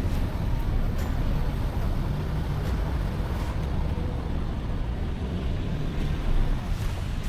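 4WD vehicle driving along a dirt bush track: steady engine and tyre rumble, with a few light knocks.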